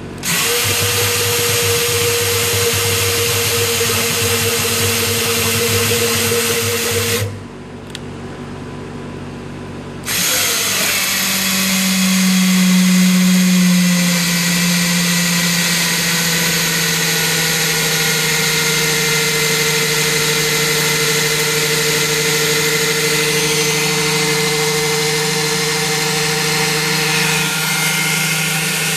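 Ridgid drill spinning an oil pump primer shaft, turning the oil pump of a Chevrolet 454 big-block to prime it. It runs steadily for about seven seconds, stops for about three, then runs steadily again to the end.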